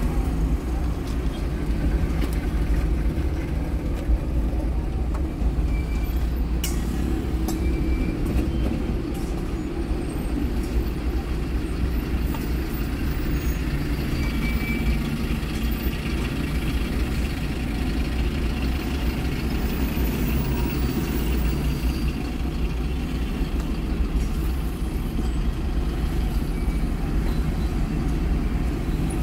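A car driving through city traffic: a steady rumble of engine and road noise, with a few faint clicks and brief higher squeaks or tones.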